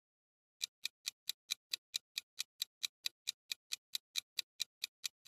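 Countdown-timer ticking sound effect: a steady clock tick, about four to five ticks a second, starting about half a second in.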